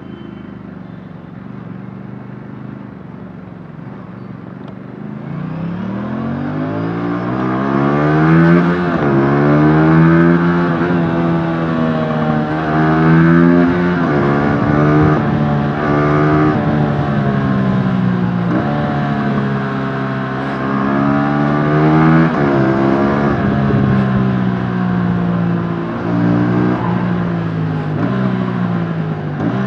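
Aprilia RS457's 457cc parallel-twin engine through its stock exhaust, heard onboard: a steady low drone for the first few seconds, then repeated acceleration with the pitch climbing and dropping back at each gear change.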